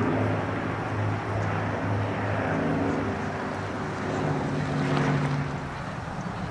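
Avro Lancaster's four Rolls-Royce Merlin V12 piston engines running as the bomber flies past: a steady low engine hum. A somewhat higher note comes in about four seconds in and falls away again near the end.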